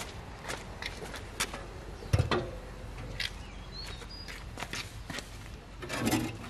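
Footsteps on a concrete floor and scattered knocks as a frame is handled, with one heavier thump about two seconds in.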